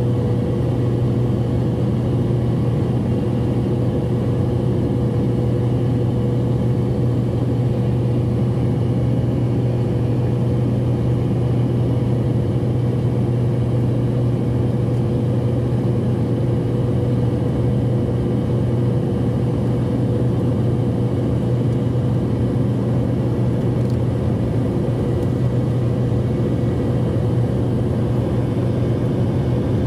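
Jet airliner cabin noise in flight: the engines and rushing air make a steady, unchanging drone with a strong low hum and a couple of faint steady tones.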